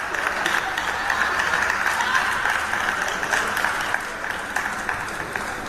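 Spectators applauding after a table tennis point: many quick hand claps over a crowd haze, easing slightly toward the end.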